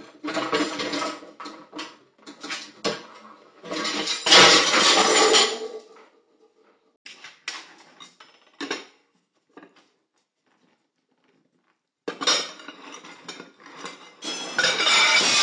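Pans, plates and a bowl clattering and scraping on a kitchen worktop as a dog noses and drags them. Several bursts of clatter and clinks, a few seconds of quiet in the middle, then a loud, longer crash of plates near the end.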